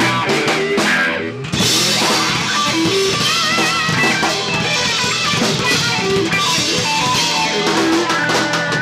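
Live blues band playing: electric guitar lead with held notes that bend and waver, over drum kit and bass.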